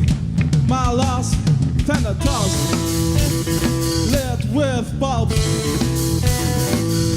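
Rock band playing live, with guitar over a drum kit. Long held notes come in from about two seconds in, among bending, sliding ones.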